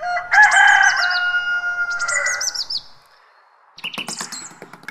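Birds chirping in two bursts, each a quick run of falling chirps over held tones, then a short pause. Near the end a quick, regular clicking percussion beat starts.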